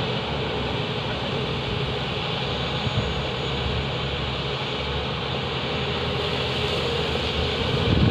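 Steady drone of heavy diesel machinery: a Tata Hitachi 470 hydraulic excavator working and a Volvo 460 mining tipper running while it is loaded.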